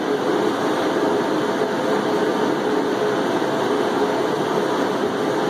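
Angle grinder running steadily against the steel shell of an old air tank, stripping off its paint: a steady whine over an even grinding hiss.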